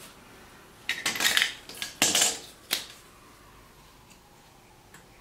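Metal hand tools clinking and clattering as they are handled and set down: a cluster of sharp knocks and clinks over about two seconds, then quiet handling.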